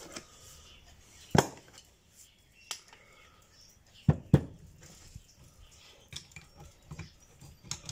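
Scattered sharp metallic clinks and knocks of spanners against a brass screw-on hydraulic hose fitting as it is handled and tightened, the loudest a little over a second in and a pair about four seconds in.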